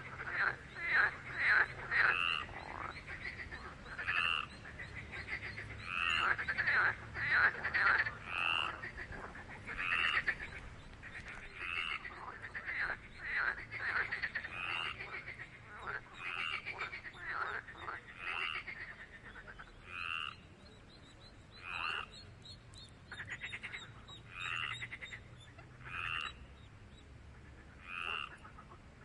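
Frogs calling: short calls repeating about every two seconds, overlapped in the first two-thirds by rapid pulsed trills that fall away, leaving only the spaced single calls near the end.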